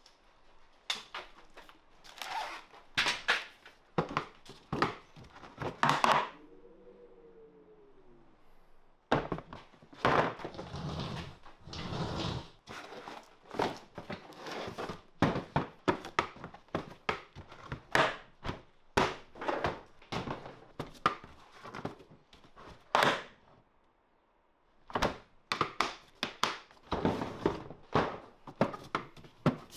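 Irregular knocks, clicks and clunks of hand work on a car's boot lid and latch, with a short whine that rises and falls about seven seconds in.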